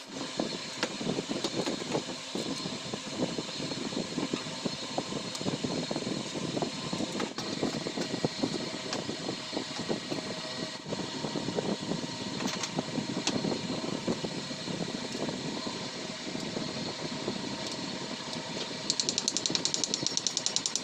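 Steady mechanical hum with scattered small clicks and rustles from hands binding and fitting parts of a homemade wooden slingshot rifle. Near the end a fast, even rattle begins.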